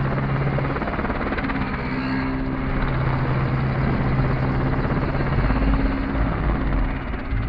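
Large radio-controlled helicopter in flight: a steady hum of rotors and motor whose pitch shifts now and then as it manoeuvres. A deeper rumble comes in about five and a half seconds in.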